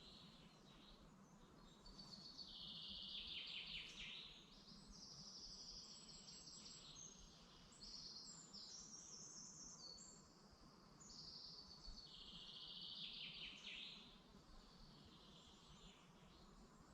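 Faint woodland birdsong: several birds singing, with one louder trilled song phrase that ends in a falling flourish, heard twice about ten seconds apart. Underneath is a steady low background hum.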